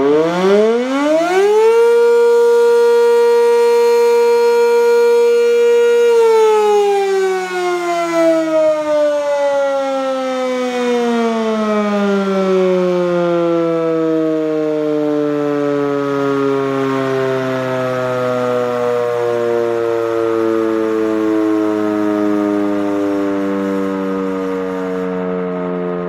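Sentry 10V electromechanical outdoor warning siren giving a short blast. It winds up over about two seconds, holds a steady tone for about four seconds, then winds slowly down, its pitch falling.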